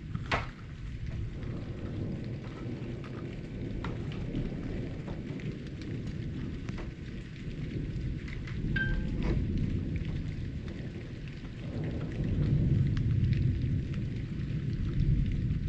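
Thunderstorm: steady rain falling, with a low rumble of thunder that swells about twelve seconds in. A single sharp tap near the start.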